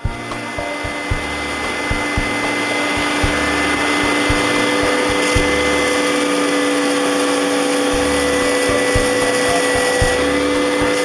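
Small belt sander running steadily as a wooden disc with a cured epoxy inlay is held against the moving belt, sanding the epoxy flush with the wood.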